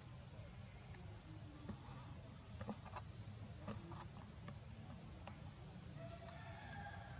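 Faint forest ambience: insects droning steadily at a high pitch over a low rumble, with a few faint clicks and a brief faint call near the end.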